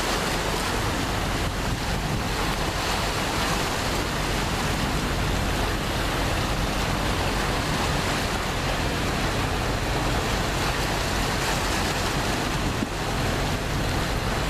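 Steady low drone of ship engines under an even rush of wind and water.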